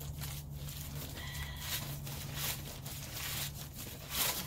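Plastic bag of potting soil rustling and crinkling in a run of short crackles as it is handled and opened.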